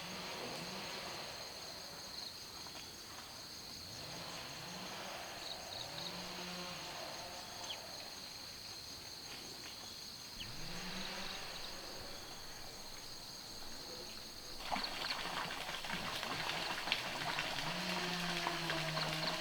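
Insects chirring steadily at a high pitch, with a few short, low animal calls that rise in pitch. About fifteen seconds in, a louder rushing noise full of small crackles and clicks starts.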